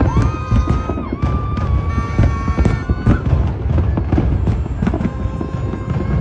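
A large fireworks display, with many shells bursting in quick succession: dense low booms and sharp cracks and crackling throughout. Held high tones sound over it for the first three seconds.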